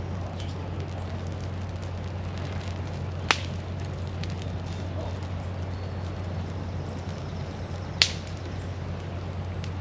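Campfire crackling, with two sharp pops, one about three seconds in and one about eight seconds in, over a steady low rumble.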